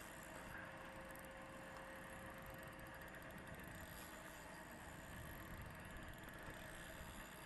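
Near silence: faint steady background hiss, with a faint steady tone through roughly the first half.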